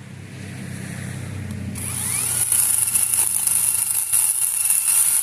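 Chainsaw running low, then revved up about two seconds in to a steady high-pitched whine at full throttle as it cuts into a pine trunk.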